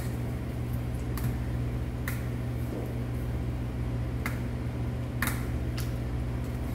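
Metal chopsticks and spoon clinking lightly a few times against a stainless steel bowl as cold noodle soup is stirred, over a steady low hum.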